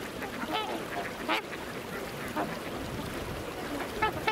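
A flock of waterfowl calling: short, pitched honking and quacking calls, several scattered through, the loudest about a second in, over a steady background hiss.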